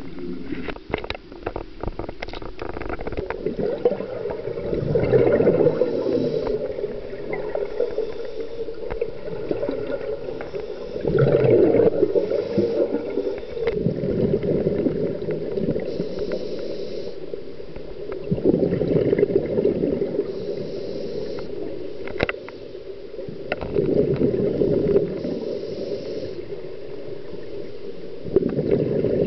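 Scuba diver's breathing heard underwater: a bubbling rush of exhaled regulator bubbles about every six seconds, with fainter hissing inhales in between. A few light clicks in the first few seconds.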